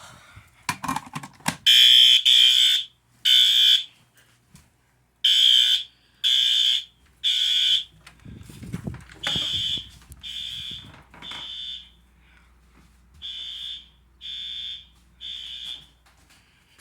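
Fire alarm horn sounding in the temporal code-3 evacuation pattern, set to high volume: groups of three high-pitched blasts about half a second long, with a longer pause between groups. The groups after about 8 seconds in are quieter, and a low rumble of handling noise comes between them.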